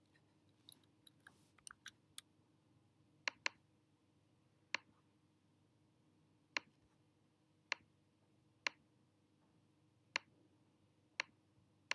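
Computer mouse clicks placing anchor points with a drawing tool: a few faint quick clicks in the first two seconds, then about nine sharp single clicks spaced one to two seconds apart, one of them a quick double click.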